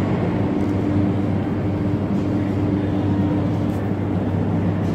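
Ezh3/Em-508T metro train's steady low electrical hum, with a few even tones over a background rumble, as it stands in the station.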